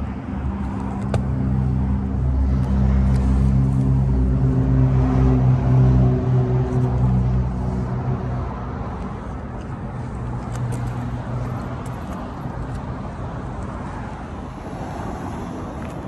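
1977 Cadillac Eldorado's 425 cubic-inch V8 running at a steady idle, a low hum through the exhaust that is loudest a few seconds in and fades away past the middle.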